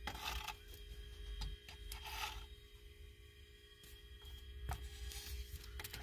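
Handling noise from a phone held close to an engine: light rubbing and scraping with a few sharp clicks scattered through, over a faint steady hum.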